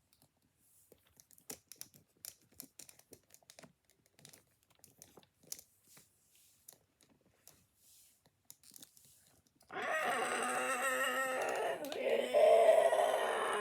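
Faint clicks and crunches of handling, then about ten seconds in a loud, sustained roar with a wavering pitch starts suddenly.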